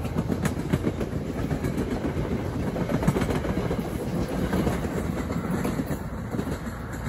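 NJ Transit passenger coaches rolling past close by at speed, their wheels clattering over the rail joints in a steady rumble that eases a little near the end as the cab car goes away.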